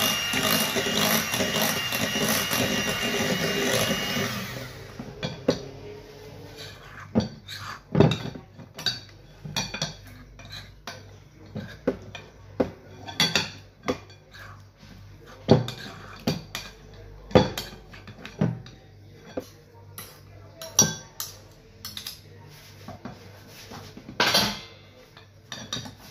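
Electric hand mixer running steadily as it whips chilled cream in a glass bowl. It is switched off about four and a half seconds in. After that come a series of scattered knocks and clinks as the beaters and utensils tap and scrape against the glass bowl.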